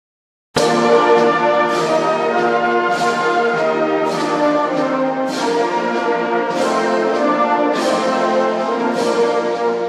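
A brass and wind band, tuba among them, playing slow sustained chords in a church, with a sharp accent about once a second. The music cuts in abruptly about half a second in.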